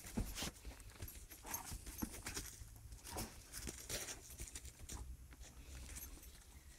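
Straw bedding rustling and crackling in irregular bursts as a pony's muzzle and a small animal scuffle in it, over a steady low rumble.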